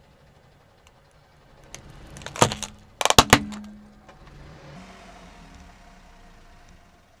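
A car tyre crushing a light bulb with a blue plastic casing: two loud clusters of sharp cracks about two and a half and three seconds in as the bulb breaks, then a fainter steady hiss.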